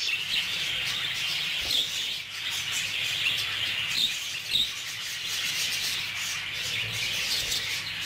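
Budgerigars chattering: a steady, dense twittering with short chirps on top.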